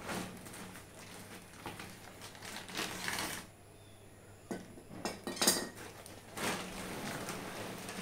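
Cardboard packing and plastic wrap rustling and scraping as a baby bed rail guard is unpacked from its carton, with small clinks and knocks of the parts; the sharpest knock comes about five and a half seconds in.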